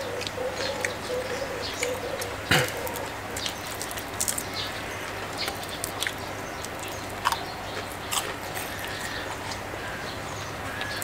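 Crunching and chewing of crispy fried salmon and its skin, a scatter of sharp crackles, with birds calling in the background.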